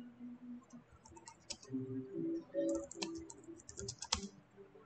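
Typing on a computer keyboard: a run of quick key clicks, sparse at first and densest in the second half.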